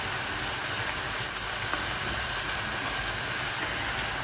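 Sliced onions sizzling steadily as they fry in oil in a wok.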